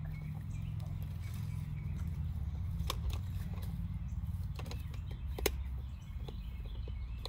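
Small plastic toy pieces handled and clicking against a plastic container: a few sharp clicks, the loudest about five and a half seconds in. Under them runs a low rumble of wind on the microphone.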